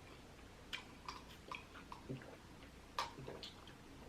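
Faint, scattered soft clicks of chewing close to the microphone: a mouth working on a bite of lobster tail.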